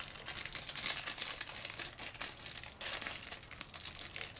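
Plastic wrapping of a cheddar cheese slice crinkling as it is unwrapped by hand.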